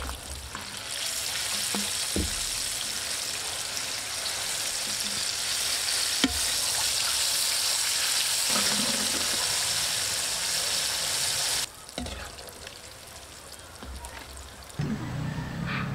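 Battered pieces deep-frying in hot oil in a wok, a loud steady sizzle that starts about a second in, as they go into the oil. A couple of sharp knocks are heard as a slotted metal spoon stirs them, and the sizzle cuts off suddenly a few seconds before the end.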